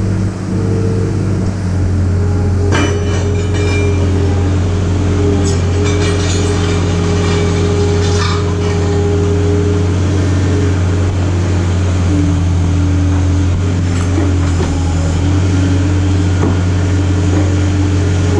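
Skid steer loader engine running steadily, with a few sharp metallic clanks on top, the sound of corrugated steel bin sheets being moved.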